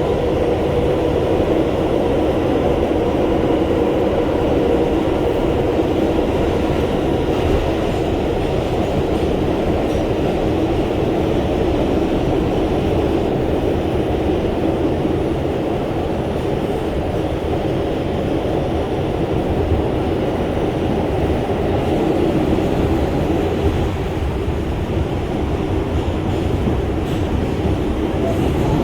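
Interior running noise of an R142 subway car at speed on the Lexington Avenue express line: a steady, loud rumble of wheels on the rails heard from inside the car.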